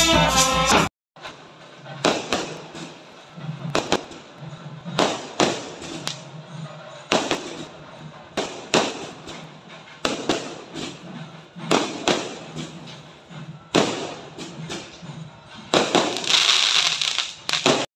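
Aerial fireworks going off overhead: a string of separate sharp bangs about a second apart, then a longer stretch of dense crackling near the end. It opens with under a second of a festival drum band before a cut.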